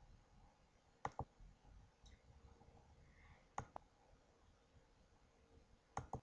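Near-silent room tone broken by three sharp double clicks, each a quick pair, about two and a half seconds apart.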